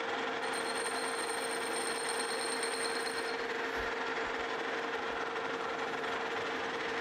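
Metal lathe running, its spindle turning a cast iron wheel while the corners are chamfered: a steady machine hum with a constant gear whine. A faint high-pitched whine joins from about half a second in until about three seconds in.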